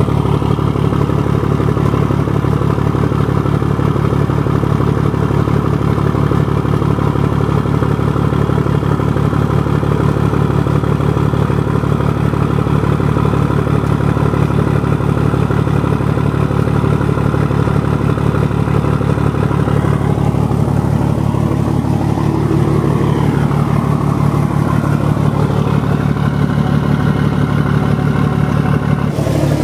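1975 Scania truck's diesel engine idling steadily after a cold start, warming up with its oil circulating, just rebuilt with new cylinder heads.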